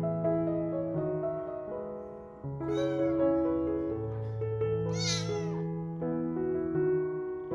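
A kitten meows twice, about three seconds in and again about five seconds in, each call rising and falling in pitch, over soft piano background music.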